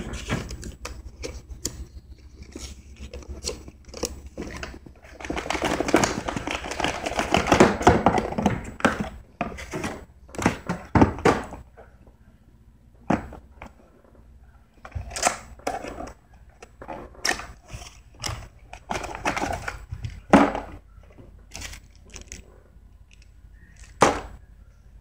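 Hands opening and handling a small cardboard product box: a run of knocks, taps and clicks, with a stretch of rustling and scraping about six to nine seconds in.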